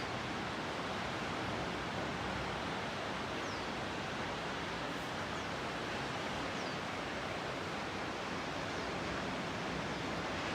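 Steady wash of sea surf breaking on a beach, an even, unbroken rush of noise, with a few faint high falling whistles about three and a half and six and a half seconds in.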